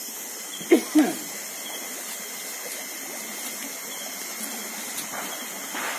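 A steady hissing noise, with two short voice-like cries, each falling in pitch, just under a second in.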